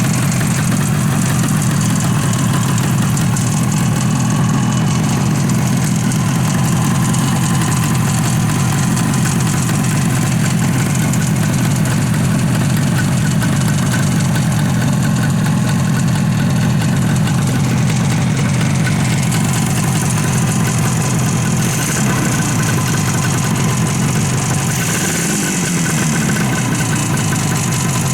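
Suzuki T350's two-stroke parallel-twin engine idling steadily on its first run after a full restoration, from seized pistons.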